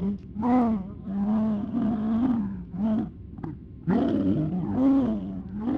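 A voice making garbled, wordless speech-like sounds in several short phrases, as if trying to talk.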